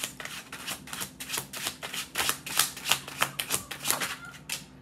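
Tarot cards being shuffled by hand: a quick, uneven run of card snaps and clicks that stops near the end.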